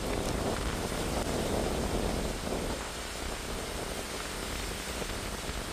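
Hurricane storm surge rushing through a flooded street, with strong wind on the microphone: a steady rush of noise that eases slightly about halfway through.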